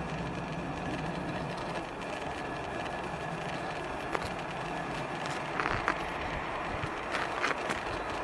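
Steady outdoor background noise with a low rumble, with a few short, sharp sounds near the middle and again toward the end.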